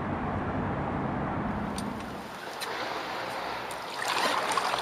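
River water trickling and lapping around a canoe, with a low rumble for the first two seconds. About four seconds in, a paddle splashes into the water in a stroke.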